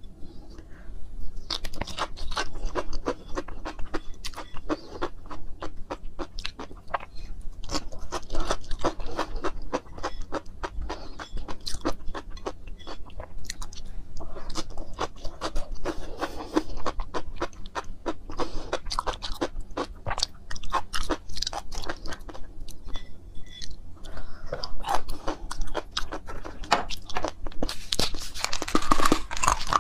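Close-miked chewing of sea grapes, with many small crisp clicks and wet crunches as the beads burst in the mouth. The sound grows louder and denser near the end.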